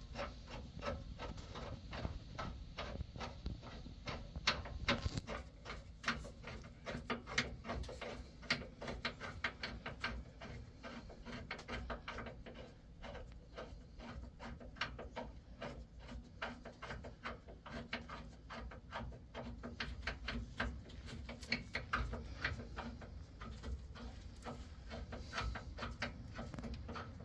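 Hand ratchet clicking in quick, irregular runs of strokes as a nut is turned by hand on the truck's front suspension.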